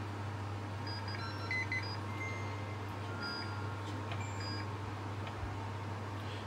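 Tefal OptiGrill Elite's control panel beeping: a string of short electronic beeps at a few different pitches as its buttons are pressed to set the cooking timer to one minute, over a steady low hum.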